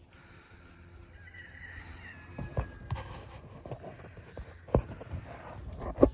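A faint animal call, falling in pitch, then several sharp knocks and thumps, the loudest near the end, over a steady high-pitched whine.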